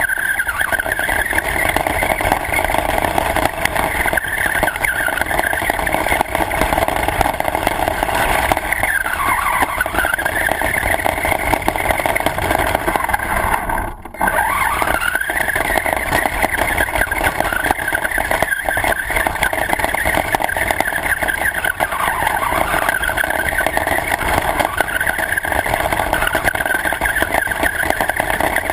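Radio-controlled car's motor running hard, its high pitch falling and rising again several times as the car slows and speeds up, over a steady rush of noise. About halfway through the sound drops out briefly, then picks up again.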